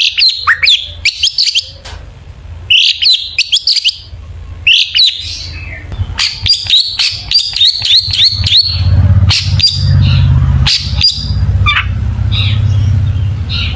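Long-tailed shrike singing a fast, varied song of sharp chirps and twittering notes in quick clusters, the kind of 'gacor' song used as a lure to set other shrikes singing. A low steady hum rises underneath from about halfway.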